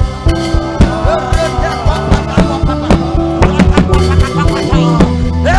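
Gospel praise band music playing between sung lines, with bass, drums and guitar keeping a steady beat.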